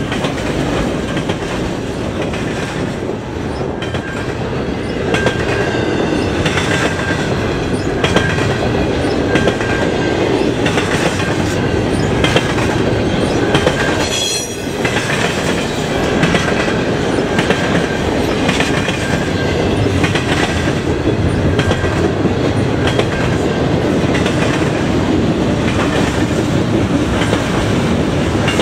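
Double-stack container freight cars rolling past at speed, wheels clicking steadily over rail joints under a continuous rumble.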